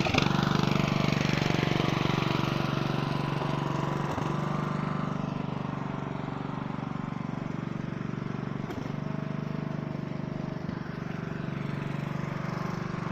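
Small engine of a riding lawn tractor running steadily under way, easing slightly quieter over the first few seconds.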